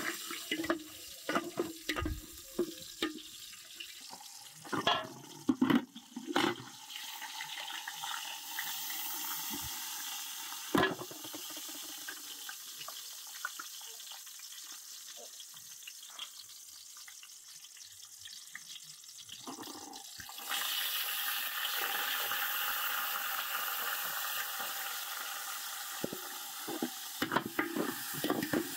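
Scattered knocks and clatter of handling, then water running with a steady hiss that grows louder about twenty seconds in and dies away near the end.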